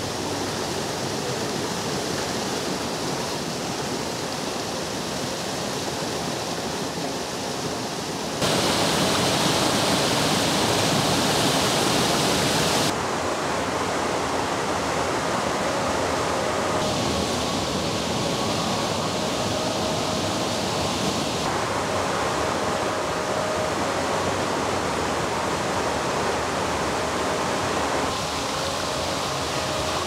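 Rushing water of the Rivelin River, a steady even noise. It changes abruptly in level and tone several times and is loudest from about 8 to 13 seconds in.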